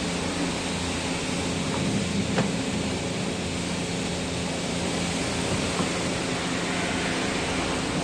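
Steady hiss with a low hum from the self-service car wash bay's equipment running, with one short click about two and a half seconds in.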